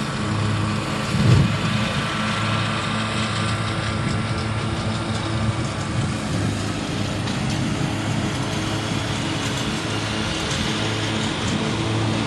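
An engine running steadily with an even, low hum, over outdoor hiss. A brief low thump about a second in.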